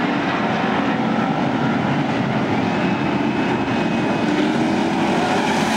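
A pack of stock race car engines running together as the field circles the oval, a steady loud drone with some engines' pitch rising and falling.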